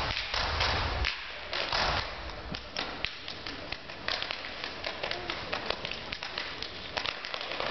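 Step team stepping: a quick, uneven run of sharp claps, stomps and slaps.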